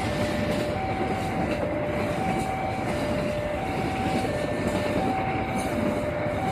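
Passenger train coaches rolling past a level crossing, a steady rumbling noise, with the crossing's electronic warning alarm sounding over it: two tones alternating high and low, each held for about two-thirds of a second.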